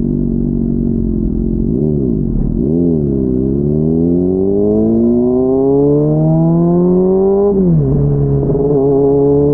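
Honda CBR600RR's 600 cc inline-four engine, heard muffled. It runs steadily, gets two quick throttle blips about two and three seconds in, then pulls away with the pitch rising steadily for about four seconds. The pitch drops sharply at an upshift and rises gently again.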